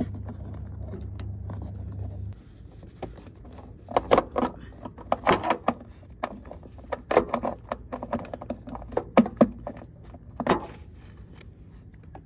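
Plastic connectors and the door wiring harness of a Lexus IS 300 being worked out through a tight grommet hole, with irregular clicks, knocks and scraping. The handling is heaviest from about four to ten seconds in. A low steady hum stops about two seconds in.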